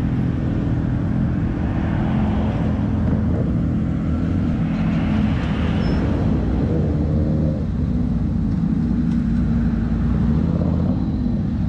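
Several motorcycles idling together: a steady, unbroken low engine note.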